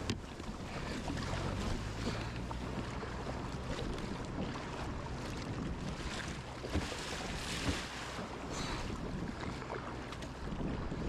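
Sea water rushing and splashing around a kayak's hull as it is paddled out, with wind buffeting the microphone; a couple of sharper splashes come about two-thirds of the way through.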